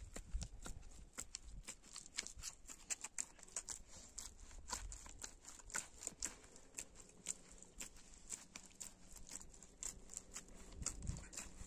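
Hands mixing and kneading flour dough in a large steel bowl: many irregular soft clicks and taps as the fingers press the dough against the metal, with a couple of dull thumps near the end.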